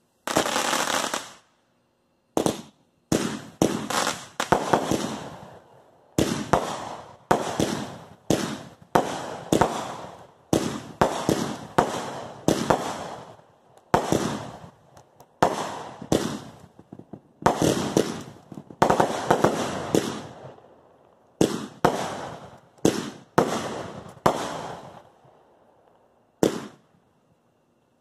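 Consumer fireworks going off in quick succession: a long string of sharp bangs, each trailing away, about one or two a second, with a short pause about two seconds in and fewer bangs near the end.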